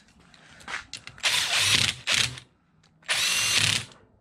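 Cordless drill running bolts into an engine's side cover, in three short bursts with a whining motor.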